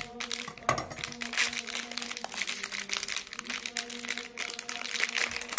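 Clear plastic bag crinkling and rustling as hands untie it and pull it open to take out a small fruitcake loaf.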